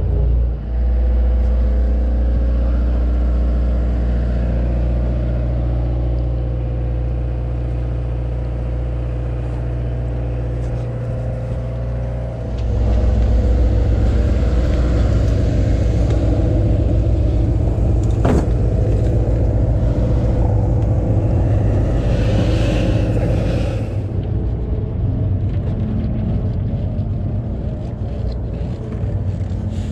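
Sportfishing boat's engine running with a steady drone, growing louder and rougher about twelve seconds in. A single sharp knock comes about eighteen seconds in.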